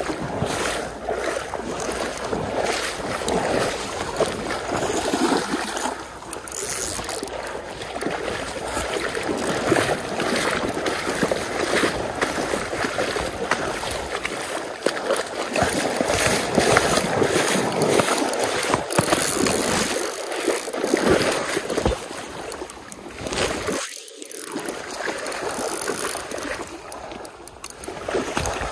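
Water splashing and swishing around the legs of someone wading through a shallow, rippling stream, over the stream's steady rushing flow; the level rises and falls with each stride.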